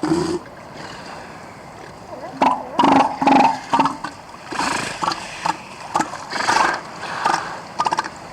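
Adult northern elephant seal belching close to the microphone: one call at the start, a gap of about two seconds, then a run of deep, pulsed belching calls at roughly two a second.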